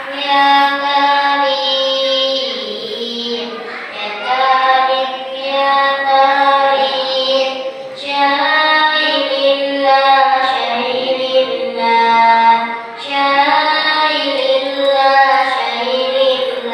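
A child's solo voice singing shalawat, the Islamic devotional song in praise of the Prophet, in long, drawn-out melodic phrases. The voice pauses briefly between phrases, about every four seconds.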